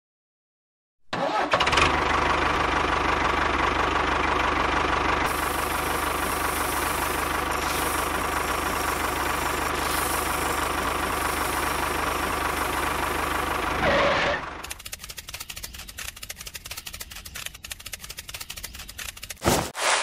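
Tractor engine starting about a second in and running steadily, then dropping at about 14 seconds to a quieter, rapid clatter like an idle.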